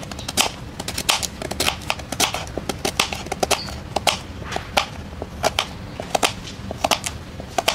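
A kitchen knife slicing through a raw purple potato and chopping down onto a cutting board, a steady series of sharp chops about two or three a second.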